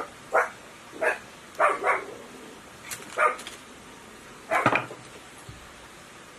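A dog barking: about seven short barks at uneven intervals, with a quick pair near two seconds in.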